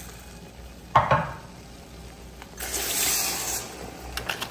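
Toasted dried chiles and water going into a hot clay pot of roasted tomatillos: a sharp crackle about a second in, then about a second of sizzling hiss near the end.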